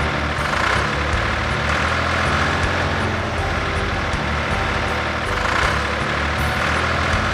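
Heavy truck engine running steadily, a sound effect for an animated construction vehicle.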